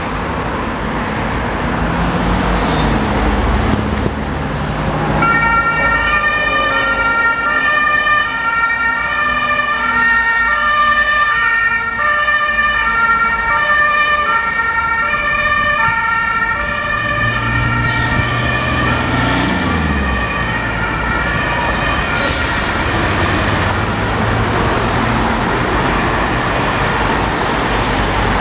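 Red Cross ambulance's two-tone siren alternating steadily between two pitches, signalling an emergency run. It starts about five seconds in and fades out near the end over steady road traffic noise.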